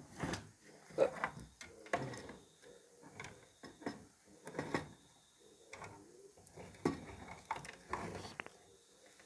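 Irregular clicks, taps and rustling from analog multimeter test probes and wires being handled against the opened rice cooker's metal body and heating-element terminals.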